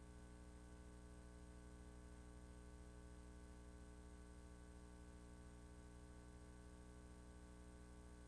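Near silence: a faint, steady electrical hum with its overtones, nothing else.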